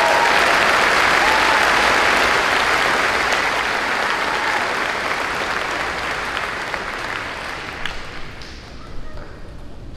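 Audience applause, loud at first, then fading steadily and dying out at around eight seconds in.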